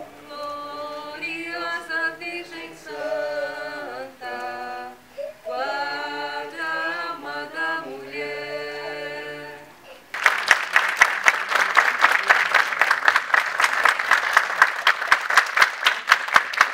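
A small group of voices singing together without accompaniment, in long held notes. About ten seconds in this cuts to loud audience applause.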